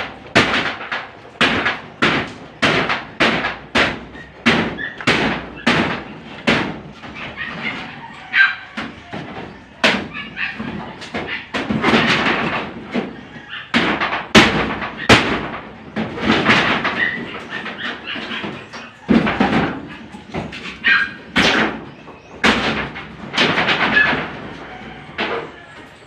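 Repeated hammering blows from demolition work on an old house. For the first several seconds they come at an even pace of about two strikes a second, then they turn irregular, with some heavier knocks.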